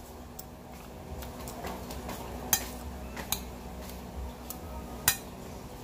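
Metal spoon and fork clinking against a plate a few times while eating, short sharp clinks with the loudest near the end.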